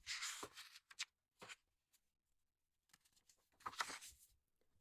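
Faint paper rustling twice, a book page being turned, with a few small clicks between.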